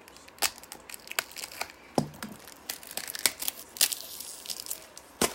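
Album packaging crinkling and tearing as a poster is pulled out, in a run of irregular sharp crackles, the strongest about two seconds in and just before the end.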